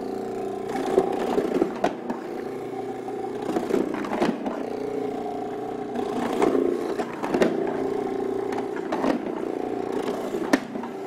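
Robot Coupe R2 Dice food processor running steadily while whole tomatoes are fed through its dicing grid, with repeated knocks and clatter on top of the motor hum.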